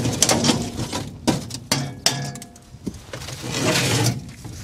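Metal clinks and knocks in quick succession for about two seconds, then a short scraping rush a little before the end: a rusted metal storage box being worked loose.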